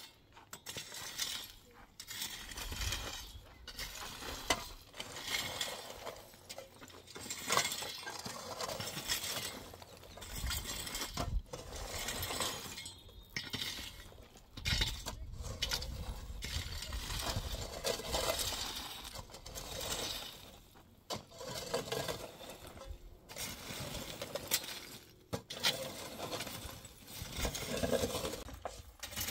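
Shovels and a rake scraping over stony dirt ground, with loose stones clinking and rattling, in repeated irregular strokes.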